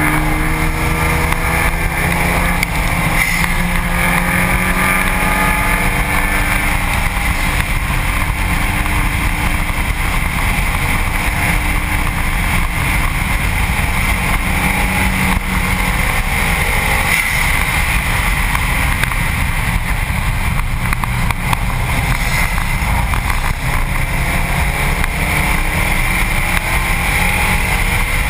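Subaru WRX STi's turbocharged flat-four engine at track speed, heard from a front-bumper camera mount under steady heavy wind and tyre-on-asphalt roar. The engine note rises under acceleration over the first several seconds.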